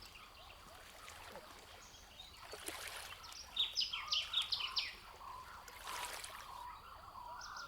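A songbird singing a quick run of about seven sharp, high notes midway through, over a steady outdoor background hiss.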